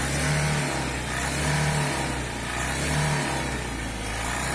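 Tata Ace Mega's turbo-diesel engine revved hard three times, about a second and a half apart, then falling back toward idle between blips. The revving is a test for black smoke now that the slipped turbo hose has been clamped back on.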